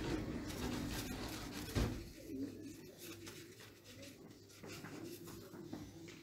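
Soft handling and rustling of a folded paper towel, with a faint thump about two seconds in. A faint, wavering, whine-like tone sounds in the background.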